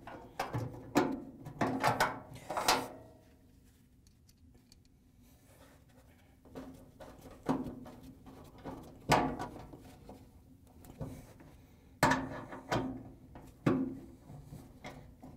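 Irregular metallic clicks and knocks of a nut driver and screws against a dryer's sheet-metal cabinet as the rear roller axle bracket is screwed in by hand. A few knocks at first, a quieter lull of about three seconds, then a scattered run of clicks.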